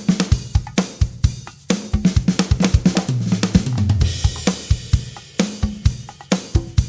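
Drum kit playing a 130 BPM groove of kick, snare and hi-hat. About two seconds in it breaks into a fill of quick hits running down the toms, which ends on a cymbal crash about four seconds in before the groove resumes.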